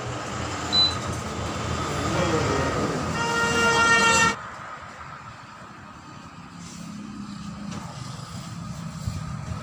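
Road traffic going by, with one vehicle horn sounding for about a second and cutting off sharply about four seconds in; a quieter steady traffic rumble follows.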